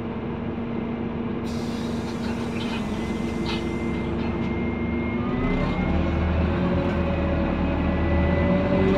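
Scania N230UD Omnidekka double-decker bus's diesel engine heard from inside the saloon, running steadily, then picking up as the bus pulls away: the engine note rises in pitch and grows louder over the second half. A hiss starts about a second and a half in.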